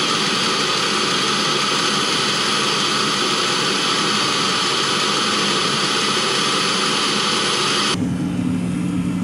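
Diesel-fired auxiliary block heater of a 2016 Mercedes Sprinter running, a loud, steady, jet-like rush from its burner and exhaust outlet. About eight seconds in it cuts off abruptly and a lower, steadier hum takes over.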